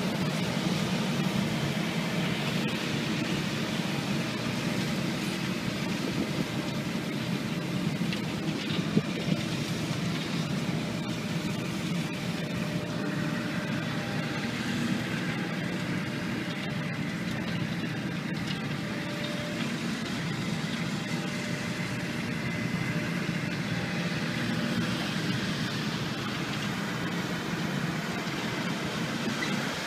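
Diesel engines of earthmoving machinery running steadily: a tracked excavator working, then a compact tractor dragging a levelling implement over bare soil, then the excavator again. A faint high steady whine joins about thirteen seconds in and fades about nine seconds later.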